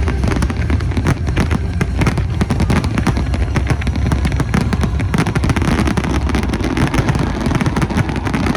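Fireworks display going off: a dense, continuous run of rapid bangs and crackles, many per second, at a steady high level.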